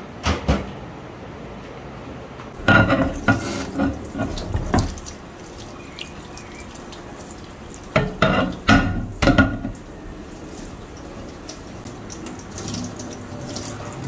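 Tap water running into a stainless-steel sink while a glass microwave turntable plate is washed. There are two spells of clattering as the glass knocks against the sink.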